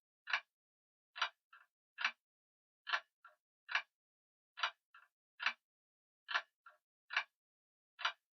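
Grandfather clock ticking: a steady tick-tock of sharp clicks a little more than once a second, with a fainter extra click following every other beat.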